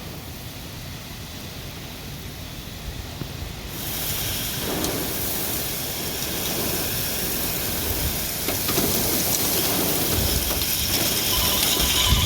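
Heavy storm rain and wind, with low rumbling underneath. About four seconds in it suddenly rises to a much louder hiss that keeps building, with scattered sharp ticks near the end.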